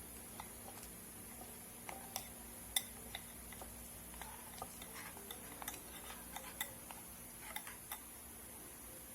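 Light, irregular clicks and taps of utensils and dishes, with the sharpest click about three seconds in, over a faint steady hiss.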